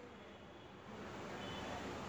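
Faint background hiss and low hum: quiet room tone with no distinct event, rising slightly about a second in.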